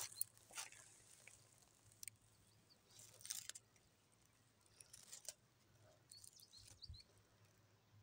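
Faint, scattered rustles and crunches of leaves and plant stems as wild violets are picked by hand, a few short bursts a second or more apart.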